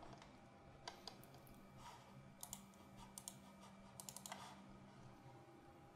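Near silence with faint clicks at a computer mouse and keyboard: single clicks about a second apart, then a quick cluster around four seconds in. A low steady hum underneath stops a little after five seconds.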